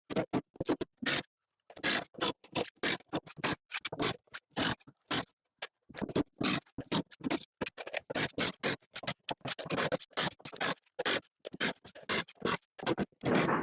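A quick, irregular run of clicks, knocks and scrapes of wood and metal as screws are backed out of hickory tabletop boards and the boards are handled.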